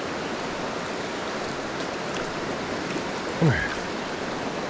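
Shallow mountain creek running steadily over rocks. About three and a half seconds in, a short vocal exclamation falls in pitch.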